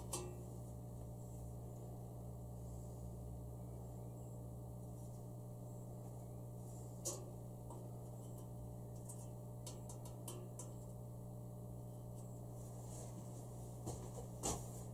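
A few scattered light clicks and ticks of a stiff steel wire tapping against a perforated metal grill grate as it is threaded through, over a steady low hum.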